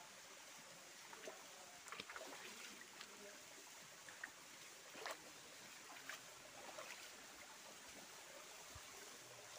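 Faint steady rush of a forest stream or small waterfall, with scattered light clicks and scuffs of footsteps on a dirt path between about one and seven seconds in.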